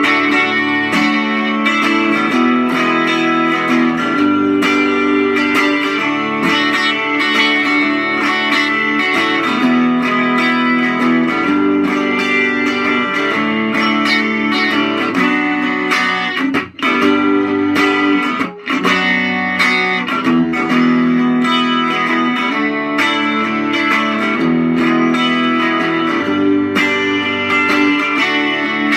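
12-string Telecaster electric guitar played through an amplifier on its bridge pickup alone, ringing chords that change every second or so, with two brief breaks about 17 and 18.5 seconds in.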